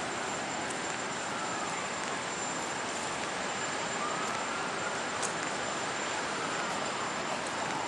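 Steady city traffic noise: the even hiss of tyres on wet streets, with a faint tone slowly rising and falling behind it.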